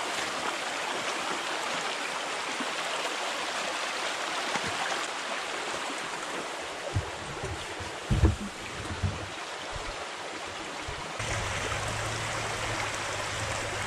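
Shallow creek water rushing over rocks, a steady hiss. A few low thumps come a little past the middle, and near the end a low steady engine hum joins in.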